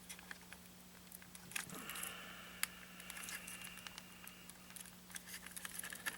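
Light clicks and ticks of a plastic RC car body shell being handled and worked onto its chassis tabs, with a faint scraping stretch in the middle. A steady low hum runs underneath.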